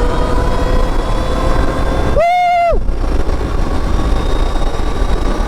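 Wind noise rushing over the camera microphone while riding a Stark Varg electric dirtbike, with a faint whine from its electric motor. About two seconds in, a single loud half-second tone cuts through.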